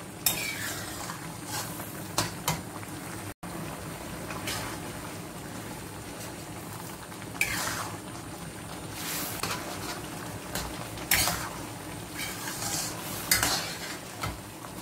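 Metal spatula scraping and clinking against a stainless steel wok as a tomato-and-egg stir-fry is stirred, with irregular strokes every second or two over a steady sizzle of the watery tomato sauce cooking down.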